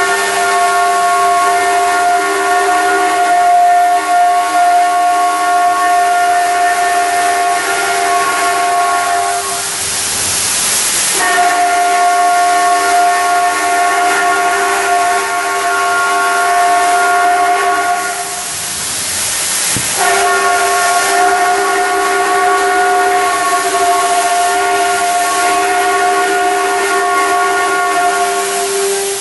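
Spindle of a 5-axis CNC router whining steadily at a constant high pitch. Twice the whine gives way for a second or two to a loud hissing rush of noise before returning.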